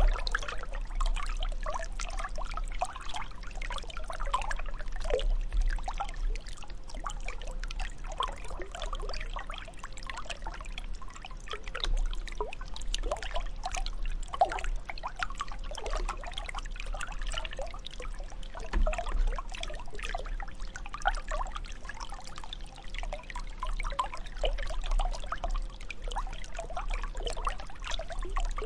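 Water trickling steadily, with a constant run of small, irregular gurgles and splashes.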